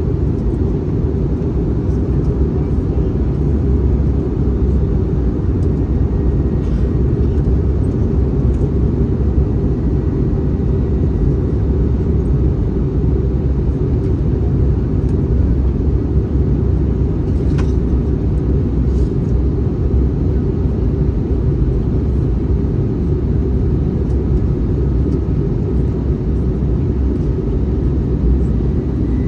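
Steady low rumble of an Airbus A321neo's cabin in flight, the even noise of engines and airflow heard from a window seat, with a faint thin tone over it.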